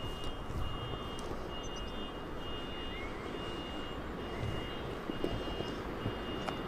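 Steady low rumble of rail and city traffic at a railway station, with a faint high steady whine that comes and goes.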